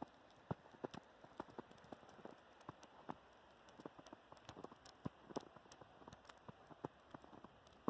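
Faint, irregular ticking and tapping of snow and ice falling in a snowstorm, several light taps a second over a soft hiss.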